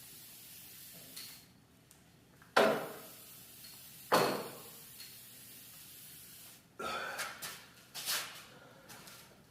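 Two loud knocks about a second and a half apart, each with a short ringing tail, then a quick run of lighter knocks and clattering near the end.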